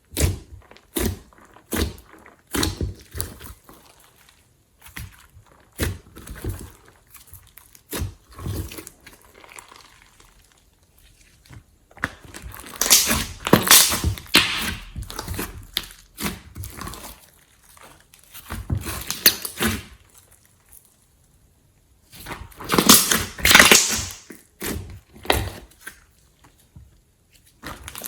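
Glossy slime being worked and mixed, giving a run of sharp clicks and sticky pops, then longer spells of wet squishing and crackling.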